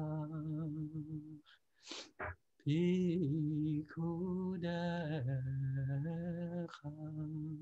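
A man singing a slow, unaccompanied niggun (a Jewish devotional melody) in long held notes, with short breaks between the phrases.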